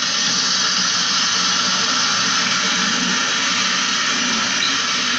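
Pressure washer jet spraying water onto the aluminium fins of a window-type air conditioner's coil, a steady hiss as the dirt is washed out.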